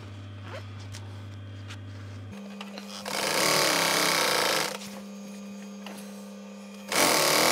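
Industrial sewing machine stitching a zip onto cushion fabric in two short runs, about three seconds in and again near the end, each lasting a second or two; between runs its motor hums steadily.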